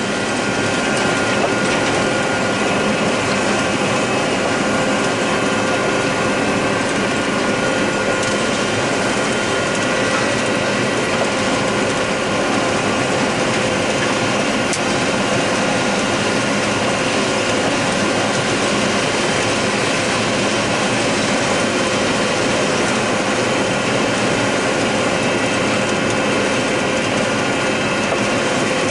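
John Deere 9600 combine running while harvesting corn, heard from inside the cab: a steady dense mechanical noise with several steady whining tones.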